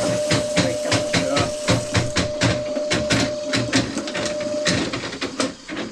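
Motorized drain-cleaning machine running, its cable clattering in a steady rhythm of about four clicks a second over a constant motor whine. The machine stops near the end.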